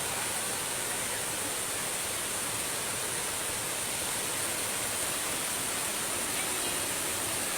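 Steady, unbroken rushing of flowing water, an even hiss with no pauses or changes.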